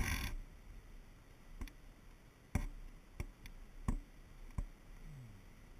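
A brief rustle, then about six sharp, irregularly spaced clicks: handling noise from the hand-held camera pole.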